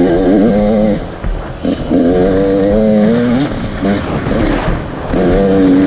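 Enduro dirt bike engine revving in bursts, heard from the rider's helmet: the throttle is held open for a second or two at a time with a wavering note, easing off briefly about a second in and again around the four-second mark before opening up again near the end.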